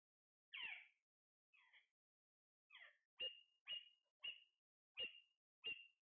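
Caged parakeet calling faintly: a few scattered squawks, then from about halfway a quick run of short, even calls, about two a second.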